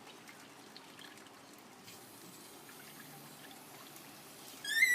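Water trickling faintly as it is poured from a container onto the enclosure's soil. Near the end, a short, loud, high-pitched tone cuts in.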